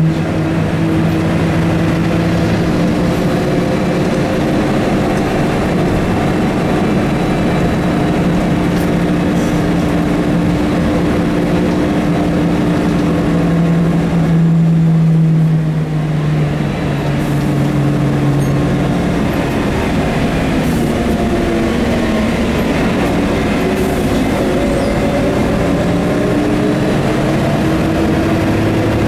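Scania OSC11 11-litre six-cylinder turbo CNG engine of a rear-engined Scania L113CRB bus, heard from inside the passenger cabin while the bus is under way. The engine's steady drone holds for the first half, drops a little about halfway through, then climbs again near the end.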